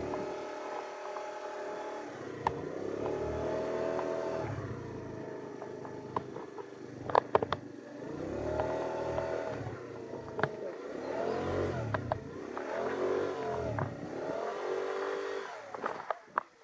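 Scooter engine being ridden, its pitch rising and falling several times as the throttle is opened and eased off. A few sharp knocks come through along the way.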